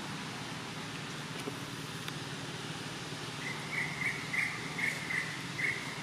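Forest ambience with a steady low background hum. From about halfway, a run of about six short high chirps at one pitch.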